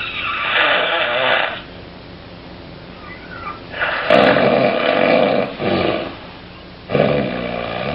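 A person snoring: three loud snoring breaths with quiet gaps between them, the second one the longest at about two and a half seconds. Each is the noise of air forced through a narrowed, relaxed upper airway during sleep.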